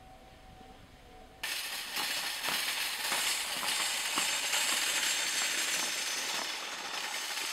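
Wire shopping cart being pushed over a snowy, rutted road, its metal basket and wheels rattling and clattering. The noise starts suddenly about a second and a half in.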